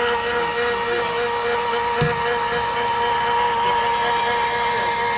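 Electric stone polisher running steadily with a constant motor whine as it makes passes over the stone, with a short knock about two seconds in.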